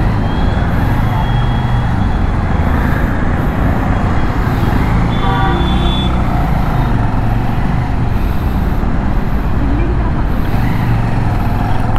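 Riding a Bajaj Avenger 220 motorcycle in traffic: steady wind rush on the microphone over the running engine, with a vehicle horn sounding briefly about five seconds in.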